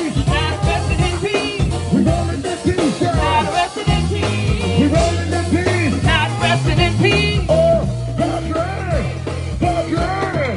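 Live gospel go-go band playing: conga and drum percussion with cymbals, keyboard, and a lead vocal sung into a microphone.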